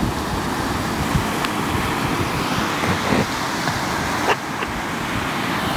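Baltic Sea surf breaking steadily on a sandy beach, with wind gusting on the microphone and a few sharp clicks.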